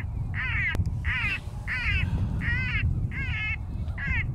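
Crow cawing in a steady run of harsh calls, about one every 0.7 seconds, over a low steady rumble.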